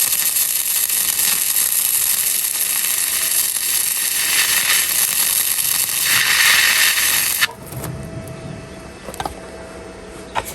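Flux-core wire welder arc crackling and hissing in one unbroken run of about seven and a half seconds, then cutting off suddenly, followed by a few light clicks. The welder reckons this weld was probably run a little too cold.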